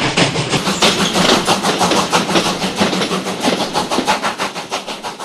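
Steam locomotive chuffing in a fast, even rhythm of about six beats a second, growing steadily fainter.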